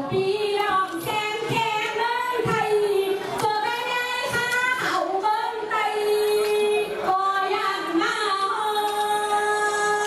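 A woman singing solo into a handheld microphone: a slow melodic line with several long held notes, the longest near the end.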